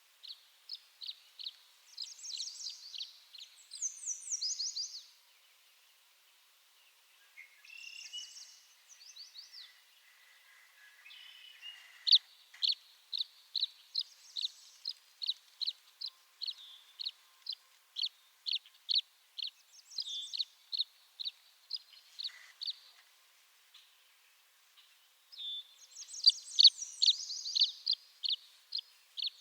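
Tree swallow calling: runs of short, high chirps, about two a second, broken by bursts of rapid twittering phrases.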